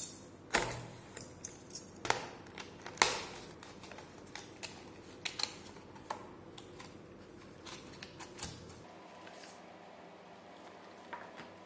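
Packaging being opened by hand: a utility knife cutting into a cardboard box, then a stiff clear plastic clamshell tray crackling and clicking as it is lifted out and handled. The sharpest snaps come in the first three seconds, with softer clicks until near the end.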